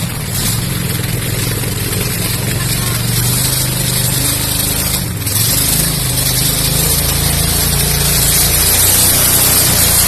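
Small boat engines on a river, running steadily under a heavy hiss. The sound grows louder near the end as a motorboat approaches.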